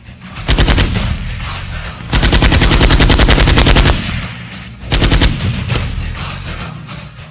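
Bursts of automatic rifle fire. A short burst comes about half a second in, then a long rapid burst from about two to four seconds, then another short burst near five seconds.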